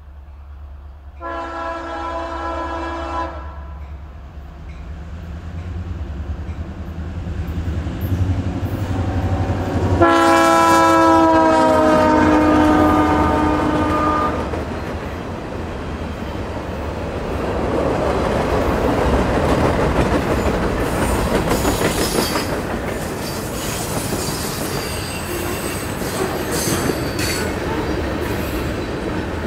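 Norfolk Southern diesel freight locomotive sounding its air horn twice: a short blast about a second in and a longer, louder blast about ten seconds in, over the low rumble of the engine. Then the freight cars roll past, their wheels rumbling and clacking on the rails with a few faint squeals.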